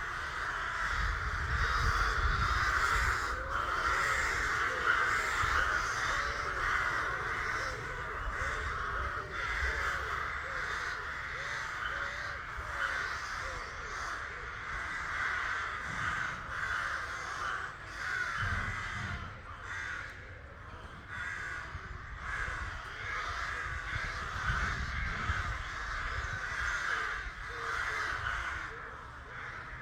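A nesting colony of ravens calling all at once, many caws overlapping into a continuous din, with a low rumble underneath.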